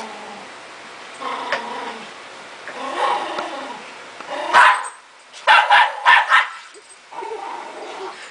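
Dog growling and barking aggressively at a person in bite padding, with several loud, sharp barks in the middle.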